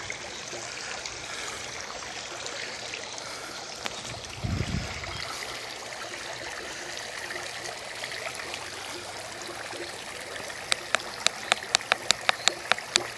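Fountain water running and trickling steadily. A brief low thump comes about four and a half seconds in, and near the end a quick run of sharp clicks, about three a second.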